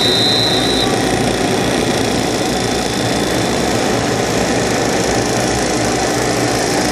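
Many racing karts' two-stroke engines running together in a steady, dense drone as the pack drives past. A brief high steady tone sounds in the first second.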